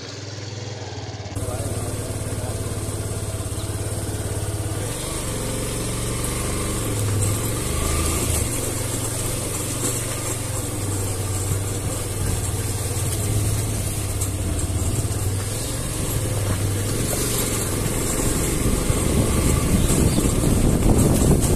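Motorcycle engine running at low speed as the bike rolls slowly over a rough gravel lane. The sound gets louder about a second in, and a rushing noise builds near the end.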